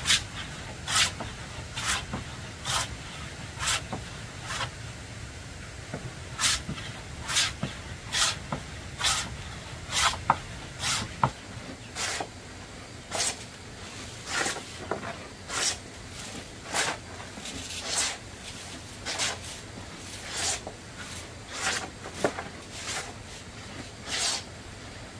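Short rasping strokes, repeated about once a second, with a pause of a couple of seconds about five seconds in.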